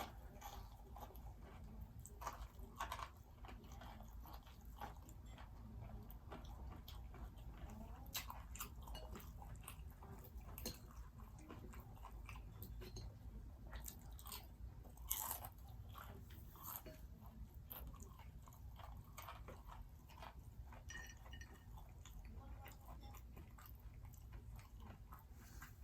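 Close-up chewing and biting of crunchy fried seafood: irregular crisp crunches, with a low steady hum underneath.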